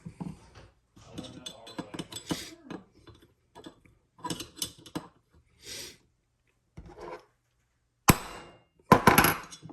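Irregular light metal-on-metal taps and clicks of a small hammer on a pin punch, driving a pin into an AR-15 lower receiver. A few louder strikes come near the end.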